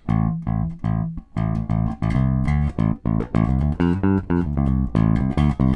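Electric bass guitar played live: a quick, busy riff of plucked notes.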